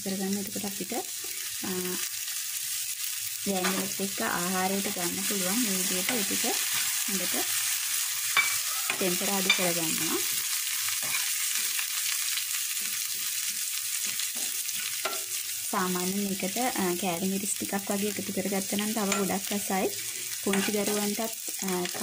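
Chopped garlic, red onion and curry leaves sizzling in hot oil in a non-stick frying pan, stirred with a metal spoon, with two sharp taps of the spoon on the pan about eight and nine and a half seconds in. A low hum comes and goes underneath.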